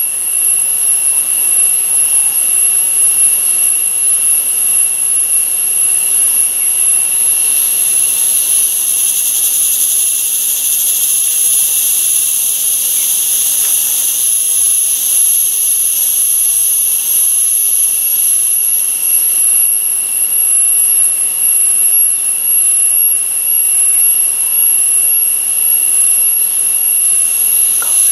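Loud, steady high-pitched drone of cicadas in tropical forest, a shrill whine with no pauses. A second, higher layer of insect song joins about a quarter of the way in and fades out about two thirds of the way through.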